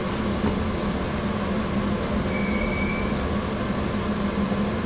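Interior of a Meitetsu 3150 series electric train standing at a platform: steady hum and background noise of the car's onboard equipment, with a brief high tone about halfway through.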